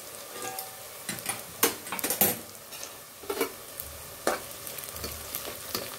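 Small onions sizzling as they fry in oil in a pressure cooker, with a spoon scraping and knocking against the pan several times as cumin and fenugreek seeds are stirred in.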